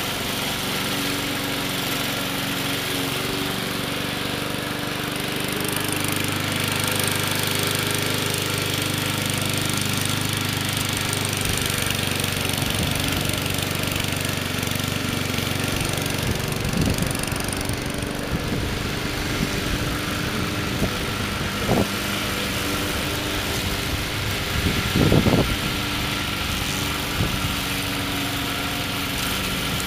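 Gas engine of an MTD 20-inch walk-behind lawn mower running steadily as the remote-controlled mower drives across the grass. It gets a little louder about six seconds in. From about halfway on, irregular knocks come through, the loudest about five seconds before the end.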